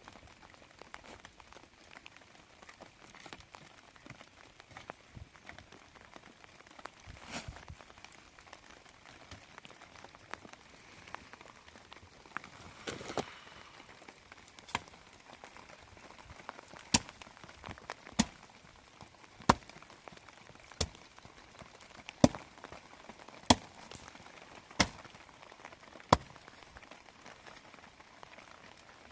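Steady rain, with a run of about eight sharp, evenly spaced knocks in the second half, one roughly every second and a quarter.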